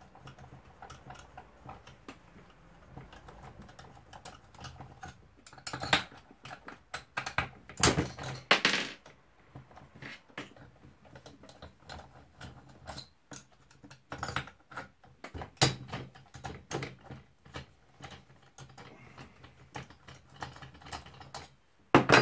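Irregular clicks, taps and knocks of hand tools and small metal parts as a Stihl 034 AV chainsaw is taken apart on the bench. They come in denser, louder runs about six to nine seconds in and again around fifteen seconds.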